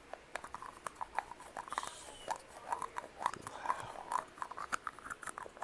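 Close-miked ASMR trigger sounds: a quick, irregular run of small clicks and taps, several a second.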